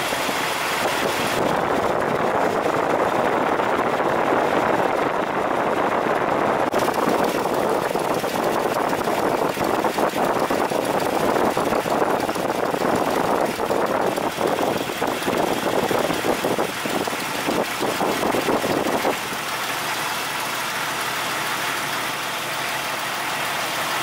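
Jeep TJ 4.0-litre inline-six idling steadily, heard close up in the engine bay, with a rapid even ticking. It is running without a misfire at this moment, though it has an intermittent cylinder 3 misfire (P0303). The sound drops slightly in level about three-quarters of the way through.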